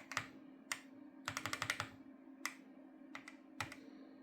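Keys of a mechanical keyboard with Cherry switches being pressed: scattered single keystrokes and a quick run of about six near the middle. A steady low hum runs underneath.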